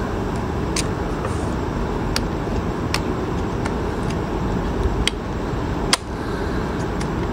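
Steady background rumble, with a handful of small sharp clicks as a thin screwdriver works against a hair straightener's plastic arms and pivot pin to push the pin out; the sharpest click comes about six seconds in.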